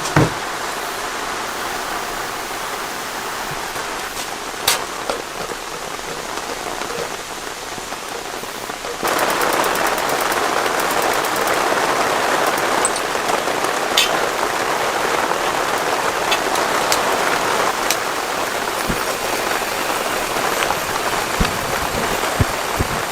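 Steady rain falling, with scattered sharp drop impacts standing out from the hiss. About nine seconds in the rain suddenly becomes louder and denser.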